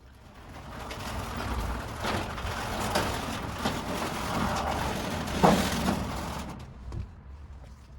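A car driving past: a low rumble with tyre noise that builds up, holds, and fades away near the end, with a few sharp clicks along the way.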